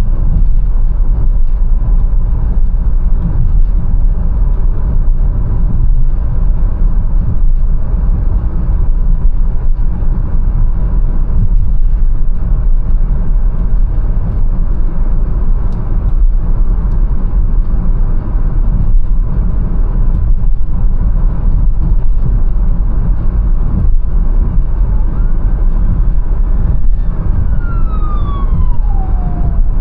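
Mercedes-Benz A180 driving through city streets: a steady, heavy low road and engine rumble with occasional knocks from the road surface. Near the end a high whine falls in pitch.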